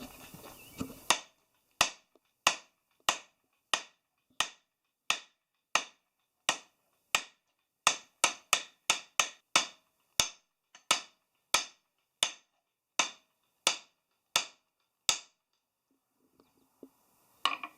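Hand hammer striking a red-hot railroad spike on a homemade anvil, forging it flat: about two dozen sharp metallic blows at a steady beat of one to two a second, quicker for a few strokes midway, stopping about fifteen seconds in.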